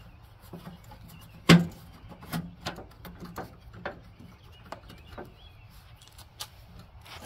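Plastic shift-lever console being pried up off a lawn tractor's plastic fender: one loud snap about a second and a half in as it pops loose, then a string of smaller plastic clicks and knocks as it is worked free and handled.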